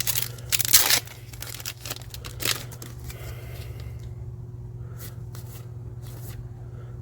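A foil trading-card booster pack wrapper being torn open and crinkled, loudest in the first second. Then softer rustling of the cards being handled.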